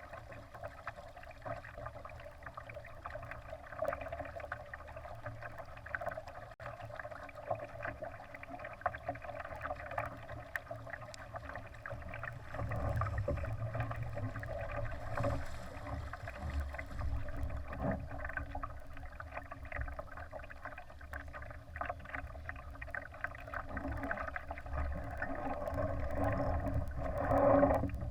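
Water rushing and slapping along the hull of a Laser sailing dinghy under way, with a low rumble under it. It gets louder about halfway through and peaks near the end.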